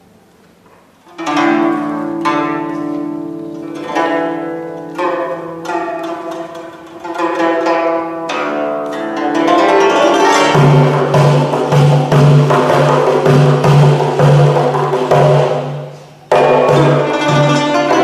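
Guzheng playing: plucked notes ring out from about a second in, and around ten seconds in the playing grows denser and louder over a pulsing low note. It breaks off briefly near sixteen seconds, then carries on.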